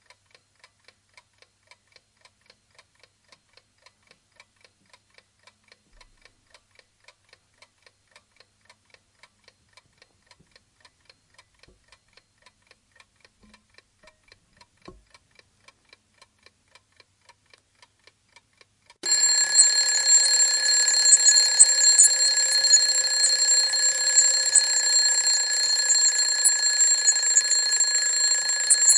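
Mechanical alarm clock ticking faintly at about three ticks a second, then its bell alarm going off suddenly about nineteen seconds in and ringing loud and steady.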